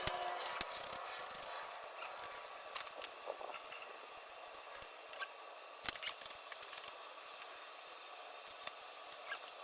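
Faint scattered clicks and taps of small parts being handled, with one sharper click about six seconds in, over a low steady hiss.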